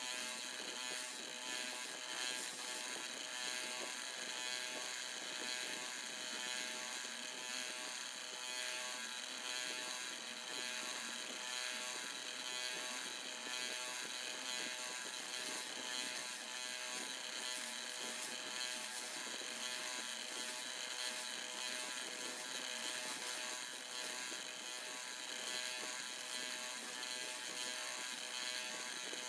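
Electric motor running a spinning polishing wheel on its shaft, a steady buzzing whine made of many fixed tones that holds unchanged throughout.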